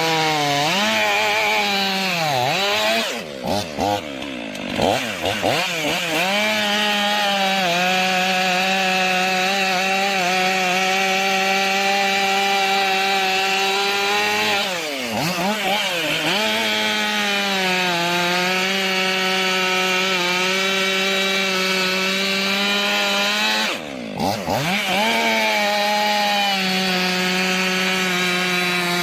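Chainsaw running at high revs, cutting through a tree trunk. Its pitch dips and recovers briefly three times: a few seconds in, about halfway, and near the end.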